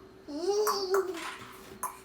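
A ringneck parrot gives one loud, voice-like call that rises and then falls in pitch, lasting nearly a second, followed by a short click.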